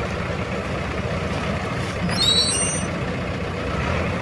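Tractor diesel engines running steadily at low revs. About two seconds in comes a brief high-pitched squeal of under a second.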